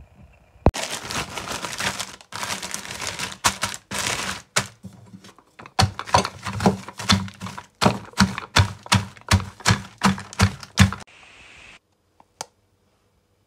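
Oreo cookies crushed in a small plastic bag with a wooden rolling pin: crackling and crunching of the biscuits and bag, then a run of sharp knocks, about two a second, that stops about eleven seconds in.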